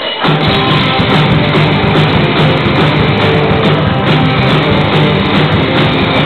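Live rock band playing loudly, with electric guitars and a drum kit, the whole band coming in at once just after the start.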